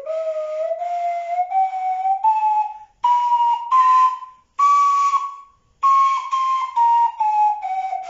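Homemade edge-blown flute made of three CDs, a cardboard toilet-paper tube and clothespins, playing a scale of breathy whistle-like notes. The notes step up in pitch, then after about five seconds step back down. The pitch is changed by uncovering and covering the end of the cardboard tube with the hand: lowest with the tube fully covered, highest fully open.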